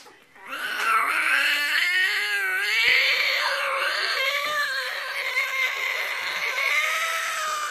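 A man imitating a cat with his voice: one long, high-pitched, wavering yowl that starts about half a second in and is drawn out for about seven seconds.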